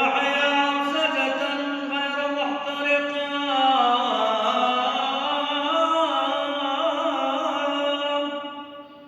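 A man chanting a Christian liturgical prayer: one long melismatic phrase of held notes, stepping down in pitch about halfway and fading away near the end.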